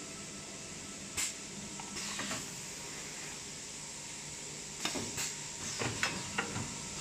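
Multi-roll toilet paper packing machine running with a steady hum and high hiss, broken by sharp clicks and snaps: one about a second in, a couple around two seconds, and a cluster near the end.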